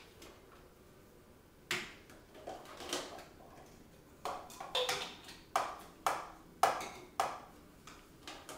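Dishes and kitchenware clinking and knocking as they are lifted out of a dishwasher and put away: about a dozen sharp knocks, each with a short ring. They start about two seconds in and come thickest in the second half.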